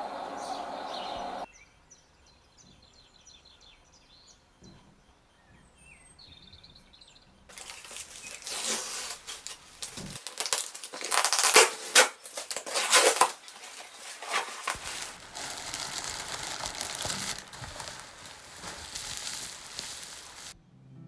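Packaging being unboxed: loud crinkling and crackling of wrapping as a package of beeswax pellets is opened, starting after a quiet stretch and easing into steadier rustling.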